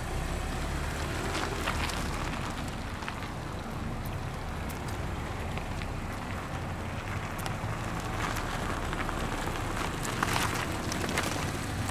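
Mazda MX-5 Miata RF driving slowly in a tight full-lock circle: a steady low rumble of tyre noise on asphalt and its four-cylinder engine at low revs. It grows a little louder about ten seconds in as the car swings closest.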